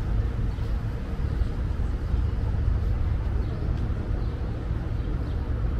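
Outdoor waterfront city ambience: a steady, even low rumble with no distinct events.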